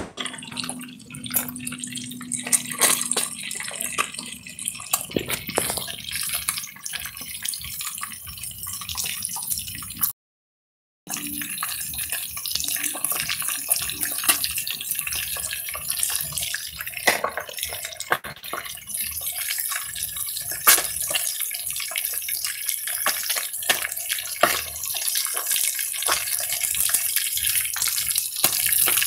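Fish deep-frying in hot oil in a pot: a steady sizzle full of fine crackles and pops. It cuts out completely for about a second near the middle.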